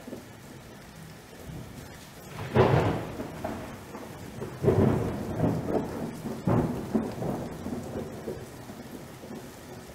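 Thunder rolling three times over a steady hiss of rain, the first roll about two and a half seconds in, each one fading out slowly.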